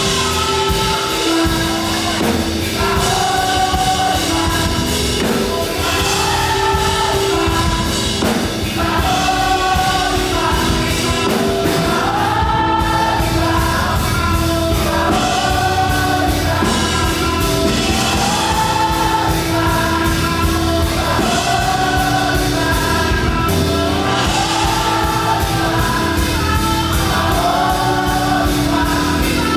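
Choir singing an up-tempo gospel praise song, performed live over a band with a fast, driving beat.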